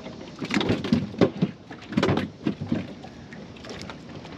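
Irregular knocks and clunks of gear being handled on a fishing boat, bunched in two clusters about half a second and two seconds in, then settling down.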